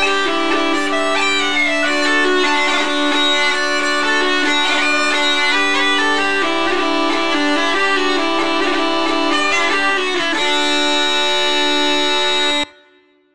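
Uilleann pipes playing an Irish traditional-style tune, with the chanter melody over steady drones. The tune ends on a long held note that cuts off sharply near the end.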